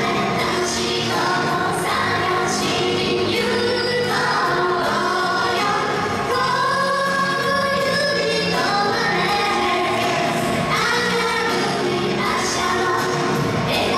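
A female idol group singing together over a pop song's music.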